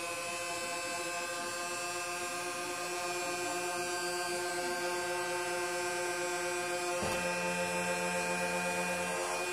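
Motorized Nerf Rival blaster's flywheel motors spinning up and running with a steady electric whine. About seven seconds in there is a click, and a lower hum joins the whine for about two seconds.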